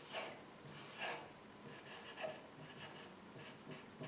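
Felt-tip marker writing on a sheet of paper on a board: faint, quick runs of short scratchy strokes with brief pauses between them.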